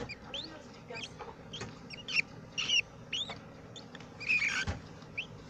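Budgerigars chirping: a busy flurry of short, high chirps that slide up and down in pitch.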